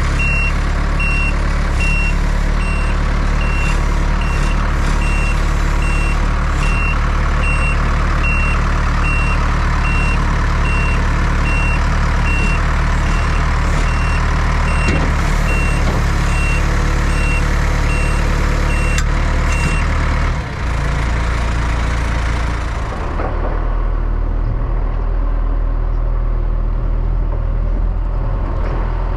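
Diesel farm machinery running steadily while a reversing alarm beeps about three times every two seconds. The beeping stops about two-thirds of the way through, and the engine runs on more quietly, its higher hiss dropping away.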